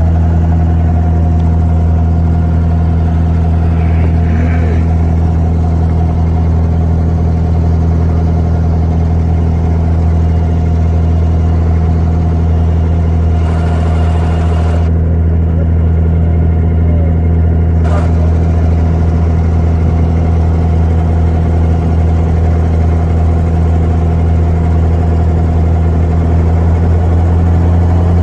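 Wooden abra water taxi's inboard diesel engine running steadily under way, a loud unchanging low hum, heard from aboard the boat.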